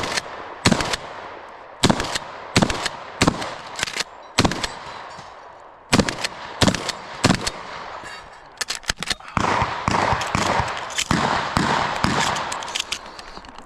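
Practical shotgun shots fired in a rapid, irregular string during an IPSC course of fire, each report sharp with an echoing tail. A denser, noisier run of reports comes in the second half.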